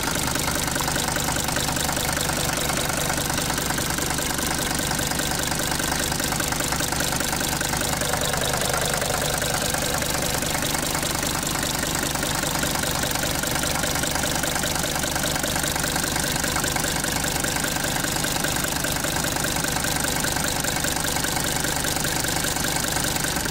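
1977 Mercedes-Benz 300D's five-cylinder diesel engine idling steadily with its diesel knock.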